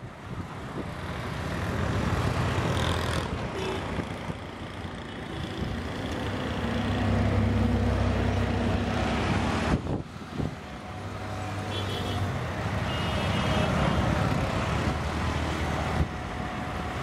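Heavy engine rumble with a low hum that swells and eases. There is a short break about ten seconds in.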